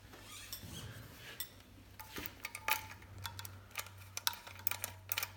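Light metallic clinks and taps of exhaust parts and hardware being handled and fitted by hand, in scattered small ticks with a brief faint ring partway through.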